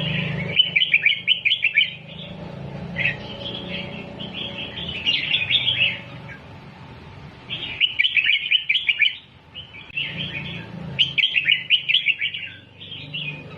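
Red-whiskered bulbul singing in bursts of quick, clipped phrases, about five bursts with short pauses between, over a low steady hum.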